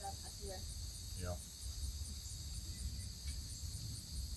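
Steady high-pitched insect chorus, with a higher trill pulsing about four times a second. Faint voices can be heard in the first second or so.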